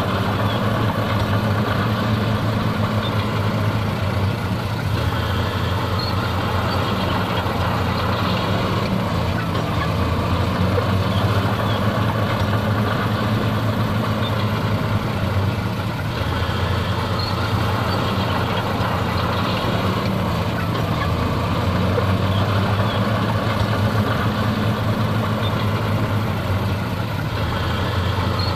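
Diesel engines of heavy earthmoving machinery (a bulldozer and dump trucks) running steadily, their pitch shifting a little now and then.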